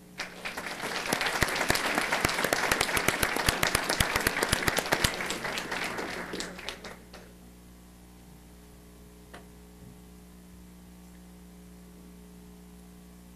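Audience applauding: a room full of clapping that swells, then fades out after about seven seconds. After that only quiet room tone with a steady hum remains.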